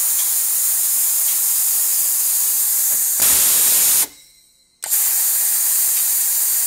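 Compressed air hissing loudly from a home-built pneumatic air vise being test-fired on a momentary switch, with the regulator turned down to 60. A long blast cuts off suddenly about four seconds in, and after a short gap a second blast starts.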